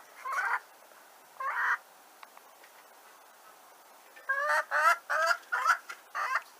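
Domestic poultry calling: two single calls in the first two seconds, then a quick run of about eight calls from about four seconds in.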